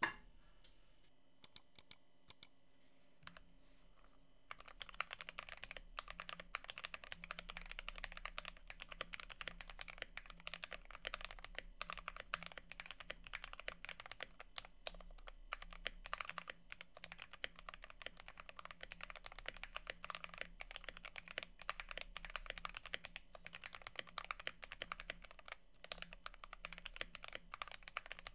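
Typing on an acrylic-cased AKKO ACR 98 mechanical keyboard with lubed Gateron Black Ink V2 linear switches and AKKO keycaps. A few single keystrokes come first, then steady, fast typing begins about four and a half seconds in.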